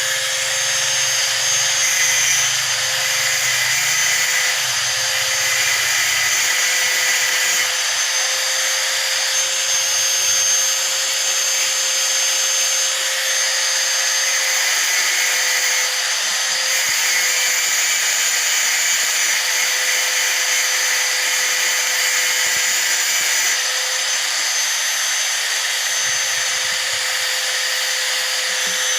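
Hand angle grinder running steadily with a constant high whine, its disc grinding steel with a dense hiss.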